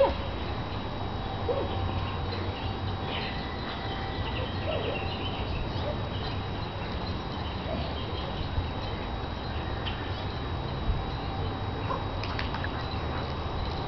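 Soft, irregular footfalls of a running greyhound and a person on a grass lawn, over a steady background hiss and low rumble. A brief sharp sound comes right at the start.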